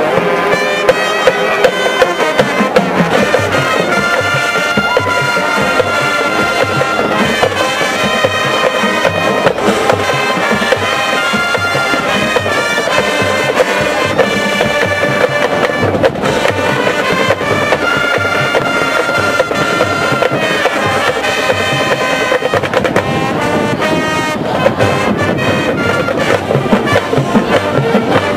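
High school marching band playing live: the brass section, tubas and sousaphones included, holds sustained chords and melody over a drumline of snare and bass drums striking steadily throughout.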